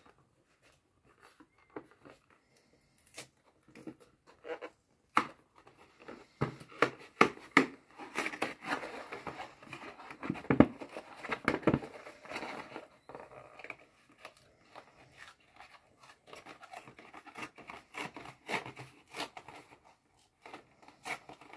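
Cardboard box of aluminium foil being handled and opened, with the foil roll pulled out and the foil crinkling and rustling. Scattered taps and clicks at first, the crinkling densest through the middle, then sparser again.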